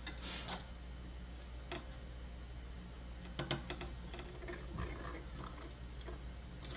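Faint scattered ticks and scratchy scraping as a soldering iron draws copper desoldering braid across a circuit board's solder pads, wicking the old solder off. A low steady hum runs underneath.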